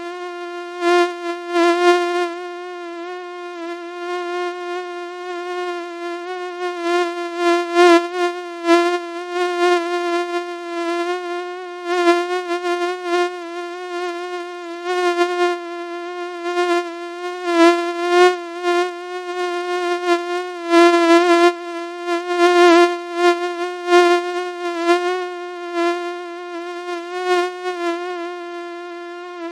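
Mosquito wing buzz: one steady, high buzzing whine with a slightly wavering pitch and frequent brief swells in loudness.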